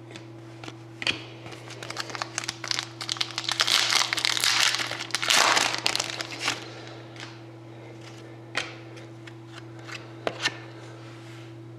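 A hockey card pack's foil wrapper being torn open and crinkled, loudest about four to six seconds in, followed by a few light clicks as it is handled. A steady low hum runs underneath.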